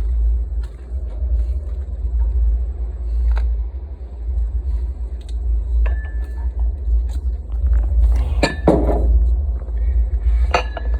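Steady low rumble on the microphone with scattered light clinks and taps, and a louder brief clatter about eight and a half seconds in.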